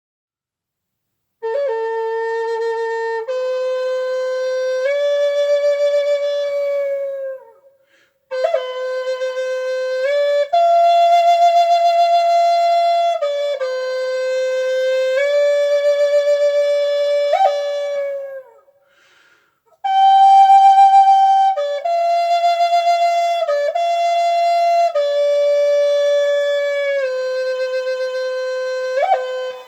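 A solo wind instrument, flute-like in tone, playing a slow melody of long held notes that step from pitch to pitch, in three phrases with short breaths between them.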